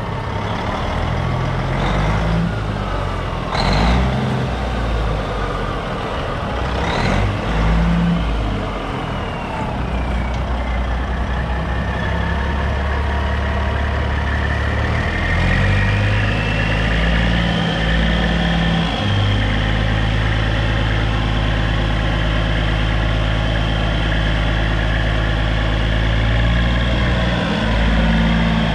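Diesel engine of a 1992 Ford LTL9000 tri-axle dump truck running and changing speed, with two short hisses of air in the first several seconds. From about a third of the way in, the engine holds a steady, raised speed while the dump body is hoisted.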